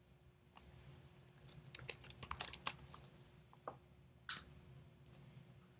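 Typing on a computer keyboard: a quick run of keystrokes between about one and a half and three seconds in, then a few separate clicks of keys or a mouse. The text being entered is a destination name.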